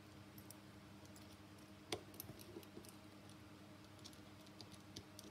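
Faint clicks and ticks of a small plastic LED bicycle tail light being fitted back together by hand, with one sharper click about two seconds in.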